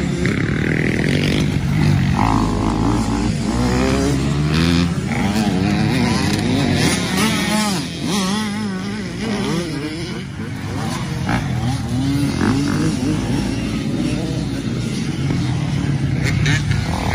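Dirt bike engines revving, their pitch rising and falling again and again, with more than one engine heard at once.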